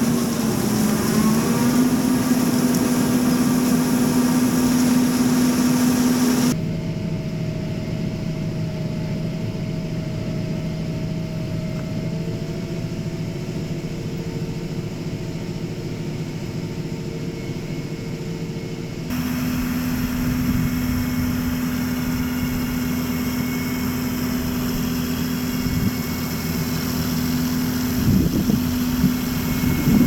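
John Deere tractor engine running steadily while towing a peanut combine, the combine's machinery running behind it. The sound is muffled and quieter inside the tractor cab from about six seconds in, opens up again from about nineteen seconds in, and ends with a few knocks.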